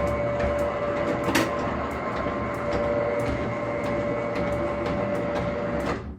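Roller shutter's electric motor running steadily with a hum and the clicking rattle of the slats, then stopping abruptly about six seconds in.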